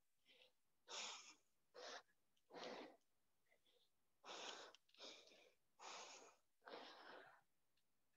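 Faint, hard breathing of a person exercising, a short breath about every second, as she works through overhead squats.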